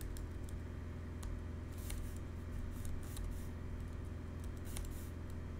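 Computer keyboard keys clicking in scattered strokes and a few short runs, over a steady low hum.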